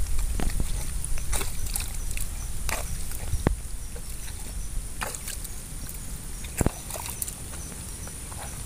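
Hands digging and squelching through soft wet mud, with scattered wet slaps and clicks.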